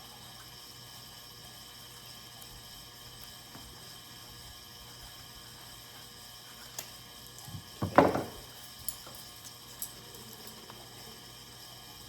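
Light switch cover being handled and straightened at the work surface: a few faint clicks and one short, louder knock with a rustle about eight seconds in, over a steady low hum.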